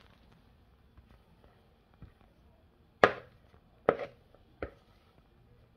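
A spatula knocks against a plastic mixing bowl three times in under two seconds while batter is scraped out. The first knock is the loudest and the last the softest.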